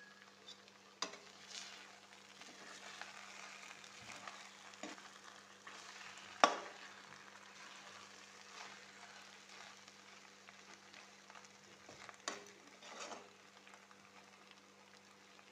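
Macaroni frying quietly in a metal kadai as a spatula stirs it, with a soft steady sizzle and scraping. The spatula knocks sharply against the pan three times, loudest about six and a half seconds in.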